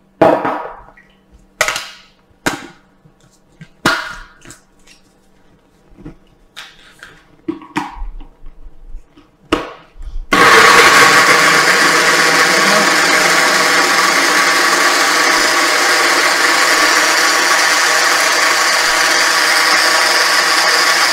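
Knocks and clicks as a personal blender cup is capped and set on its motor base. About halfway through, the blender motor starts and runs steadily and loudly, puréeing fresh blackberries with sugar.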